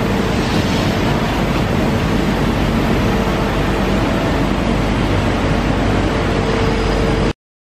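Steady, loud machinery noise with a faint steady hum, which cuts off abruptly near the end.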